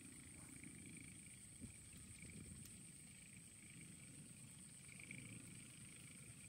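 Near silence: a faint low rumble, like wind on the microphone, with a thin steady high-pitched tone and a faint wavering higher hum over it.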